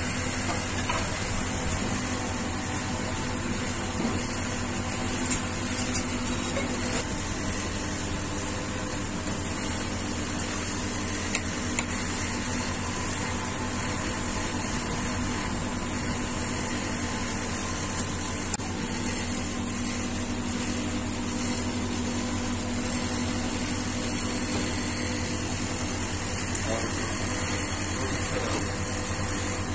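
Steady sizzling and bubbling of spiral potato twisters deep-frying in oil, over a steady mechanical hum. A few sharp clicks come near the middle.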